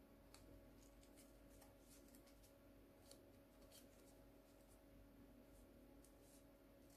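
Near silence, with faint scattered crinkles and ticks of paper being creased and folded by hand over a steady low electrical hum.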